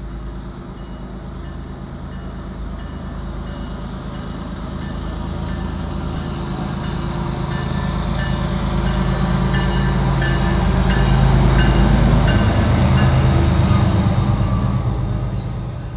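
BNSF diesel freight locomotive rumbling slowly past with its train of flatcars, the engine growing louder to a peak a little past the middle and easing off near the end. A short high ding repeats regularly, a little over once a second, through most of the pass.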